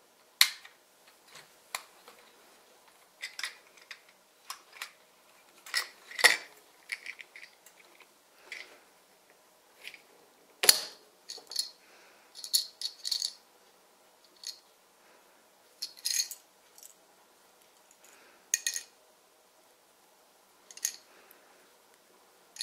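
Small hard plastic Sluban brick pieces clicking and clattering as they are handled, snapped together and dropped into a small plastic crate. The irregular light clicks come every second or so, with a few sharper clacks.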